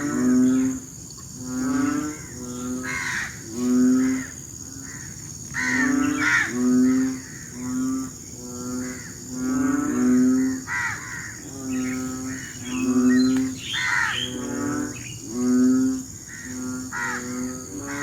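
Breeding chorus of frogs in the rainy season: several frogs giving short, low, moo-like calls, repeated about once a second and overlapping one another. A steady high whine runs underneath.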